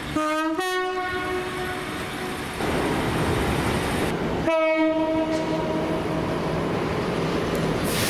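Train horns on British diesel multiple units: a Class 150 Sprinter sounds a two-tone horn, a short low note then a higher one held for about a second. About four and a half seconds in, a Class 170 Turbostar sounds another horn blast of just over a second, over the trains' running noise.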